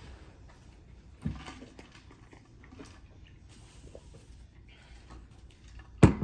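Soft eating and food-handling noises at a table, with a dull thump about a second in and a sharp knock near the end, like something set down hard.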